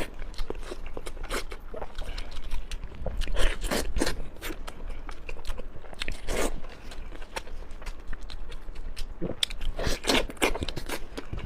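Close-miked chewing and biting while eating braised pork knuckle, with irregular mouth clicks and smacks.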